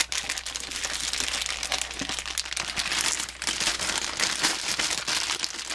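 Thin plastic bag crinkling as hands pull it out of a foam box insert and handle it, a continuous dense crackle.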